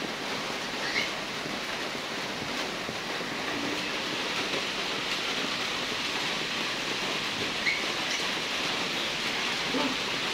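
A steady rushing hiss with no rhythm or pitch, and two short faint chirps, about a second in and near eight seconds.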